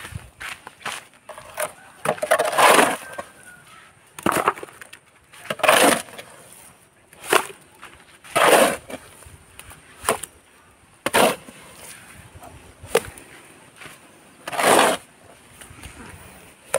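Metal shovel scraping across a concrete slab as wet cement mortar is scooped up and tipped into a bucket, in about a dozen short, loud strokes one to two seconds apart.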